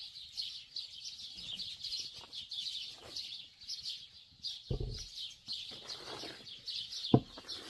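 Small songbirds chirping in a steady, continuous chorus. A dull thump comes about five seconds in, and a sharp knock, the loudest sound, near the end.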